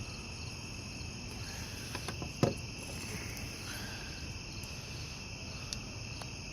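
Crickets chirping steadily, with a single short knock about two and a half seconds in.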